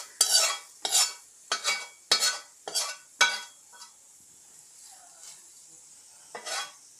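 A spoon scraping and stirring in a wok of hot spiced oil and masala, in about six quick strokes roughly every half second, then a pause and one more stroke near the end. It is the seasoned oil being scraped out onto cooked gooseberries for pickle.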